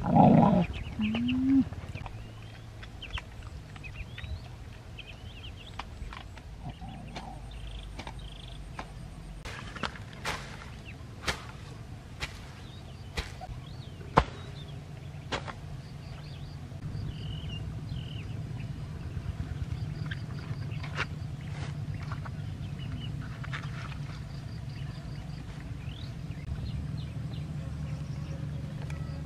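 Outdoor yard ambience: a short loud cry that falls in pitch near the start, then faint bird-like chirps and scattered sharp clicks and knocks, with a steady low hum setting in about halfway through.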